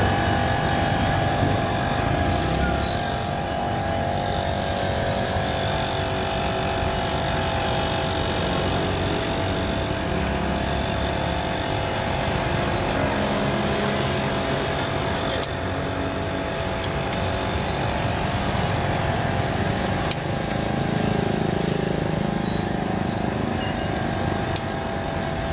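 Steady street noise of motor traffic running, with engine tones that slowly rise and fall.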